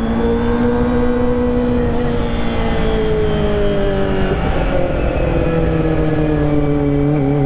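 Kawasaki ZX-25R's four-cylinder engine held at high revs through a ProSpeed Shark high-mount exhaust. The pitch rises slightly at first, then sinks slowly until about halfway, then holds steady.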